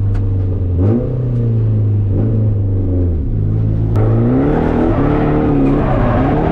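Drift car's engine running at high revs under heavy throttle. Its pitch holds, dips and recovers about a second in, drops off a little after three seconds, then climbs again as the throttle is worked.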